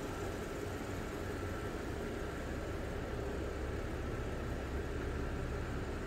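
Audi A6 3.0T's supercharged 3.0-litre V6 idling steadily, heard from behind the car near its exhaust tips.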